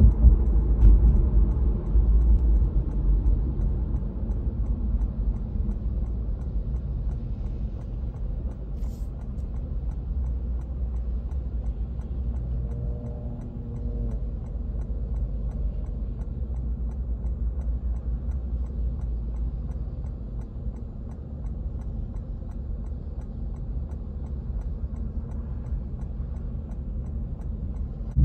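Car cabin noise on a wet road: a low engine and tyre rumble that eases off as the car slows to a stop, then a steady low hum while it idles.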